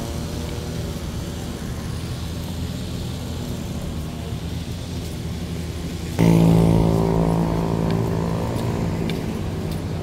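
Steady low traffic rumble. About six seconds in, a motor vehicle's engine suddenly gets loud with a steady pitched drone, then slowly fades.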